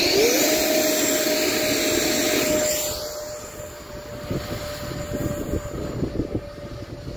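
Radio-controlled Super F-18 model jet's motor spooling up for a hand launch, then a steady high whine that grows fainter about three seconds in as the plane climbs away. Wind buffets the microphone with low thumps in the second half.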